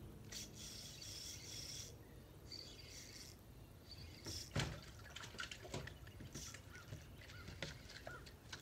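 Quiet handling noises of a fishing rod and reel on a boat: brief hissy rustles in the first few seconds, then one sharper knock about halfway through, followed by a scatter of small clicks.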